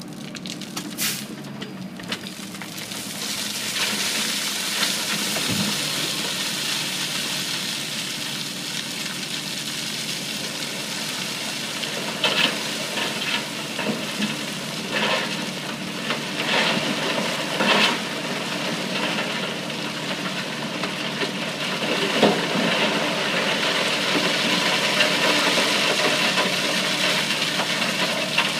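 Hirail rotary dump truck's engine running while its bed tips sideways and a load of dirt and mud slides out down the bank: a steady rushing, crackling noise that swells a few seconds in, with scattered sharp cracks and knocks from clods and rocks.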